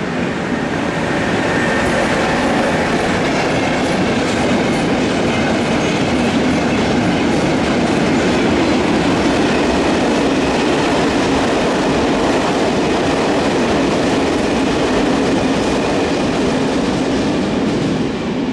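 Freight train of tank wagons hauled by a Renfe class 253 electric locomotive passing: a loud, steady rumble of steel wheels on rail with clickety-clack over the rail joints, fading near the end as the last wagons go by.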